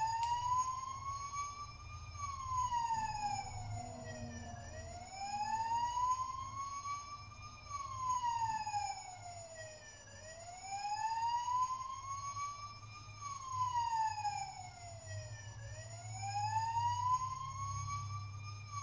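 Electronic wail siren from a Bruder Mercedes-Benz Sprinter toy ambulance's sound module. A single tone slowly rises and falls, about one cycle every five and a half seconds.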